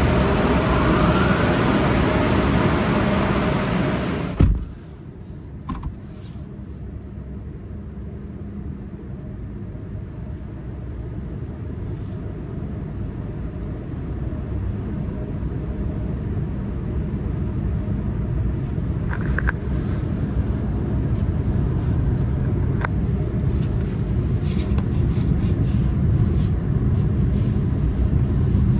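PDQ LaserWash 360+ touchless in-bay car wash running: a loud rush of spray noise that cuts off with a sharp thump about four seconds in. A lower rumble follows and slowly grows louder, with a few scattered clicks.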